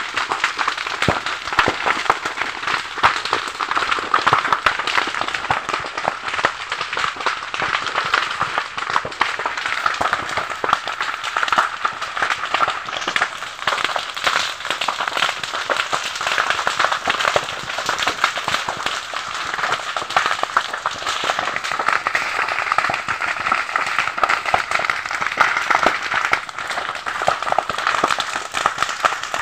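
A fire burning through dry grass and brushwood, crackling and popping densely and without a break.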